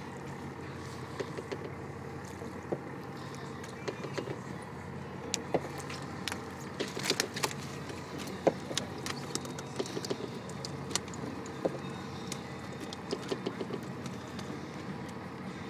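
A boat's engine running steadily at idle, with scattered sharp clicks and knocks over it.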